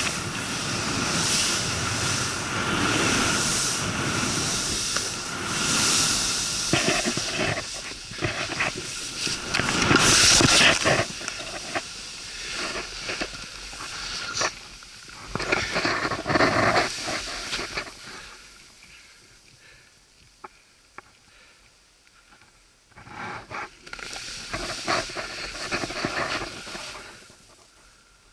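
Skis hissing through deep powder snow, with wind rushing over the body-mounted camera's microphone, in uneven surges that peak about ten seconds in. The noise dies down about two-thirds of the way through, picks up briefly once more, and goes nearly quiet near the end as the skier comes to a stop.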